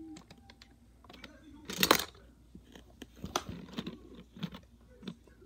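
Plastic LEGO pieces clicking and knocking as hands take apart and handle a toy train car. A louder clatter comes about two seconds in, followed by a run of small clicks.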